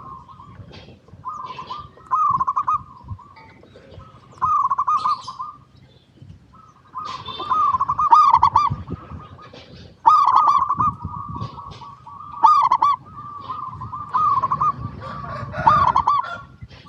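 Zebra dove (perkutut) cooing: repeated phrases of soft, rolling, warbling notes, coming in bouts a second or two long with short pauses between them, and fainter high chirps above.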